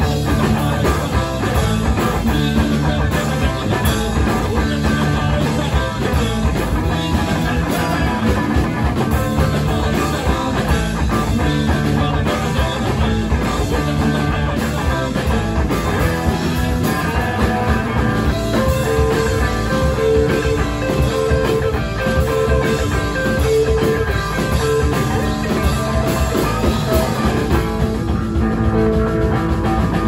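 Rock band playing: guitars over a steady drum-kit beat.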